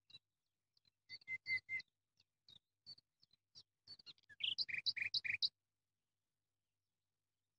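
A bird chirping: a string of short, high chirps that quickens into a fast run of louder notes, then stops about two-thirds of the way through.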